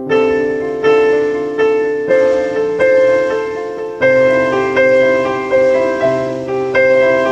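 Piano-led karaoke backing track playing an instrumental break, with no singing: chords struck about every three-quarters of a second, each fading before the next.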